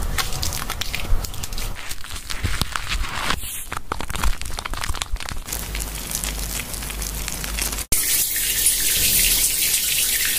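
Hands scrubbing a cat's wet, lathered fur, making wet squelching and many small clicks of foam. About eight seconds in it changes to the steady hiss of a handheld shower head spraying water on the fur.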